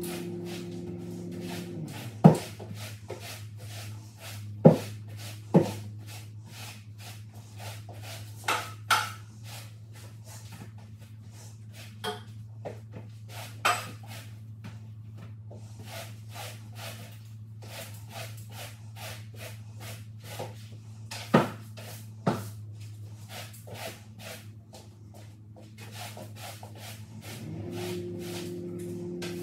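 Long-handled floor-cleaning tool worked over a wooden floor: light scuffs and strokes with a scatter of sharp knocks and clacks, the loudest about two, five and twenty-one seconds in. A steady low hum runs underneath.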